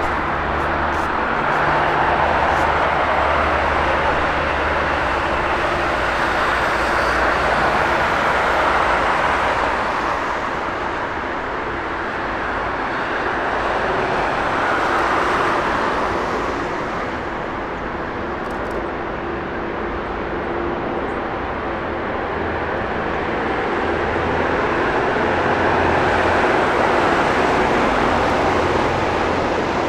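Jet airliner engine noise, a continuous roar that swells and eases over several seconds, with a low rumble underneath.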